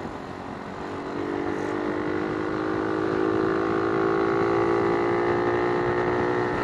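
A motor vehicle engine running, its pitch rising slightly as it grows louder from about a second in, then holding steady before starting to fade near the end.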